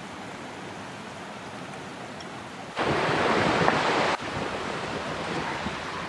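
Steady rush of a mountain stream, with a louder stretch of the rushing for about a second and a half in the middle that cuts in and out abruptly.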